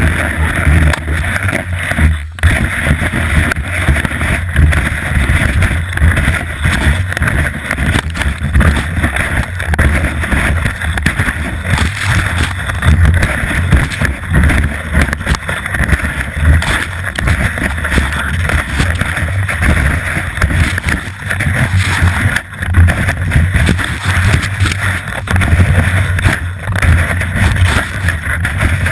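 Skis sliding and scraping over packed snow, heard through a GoPro mounted on the ski, with a steady low rumble and wind buffeting on the microphone.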